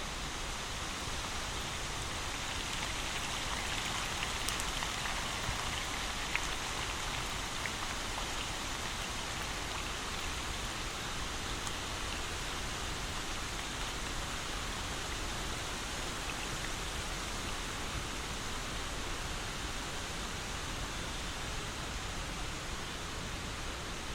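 Steady rain falling, an even hiss with a few faint drop ticks a few seconds in.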